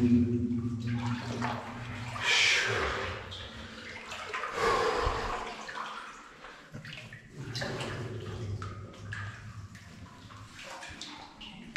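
Water sloshing and splashing around a person wading through a flooded mine adit, with louder swells twice in the first five seconds.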